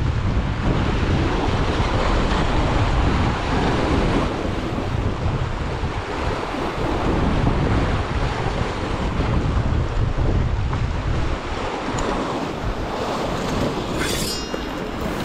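Sea waves washing against shore rocks with wind buffeting the microphone, the low wind rumble heaviest in the first half. A brief high sweep sounds near the end.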